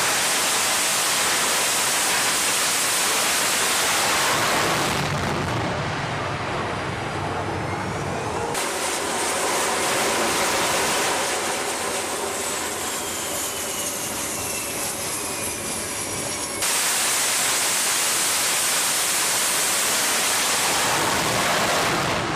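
F/A-18 jet engines running at high power on a carrier flight deck, a loud steady roar. A high whine slides slowly down in pitch in the middle, and the roar changes abruptly a few times.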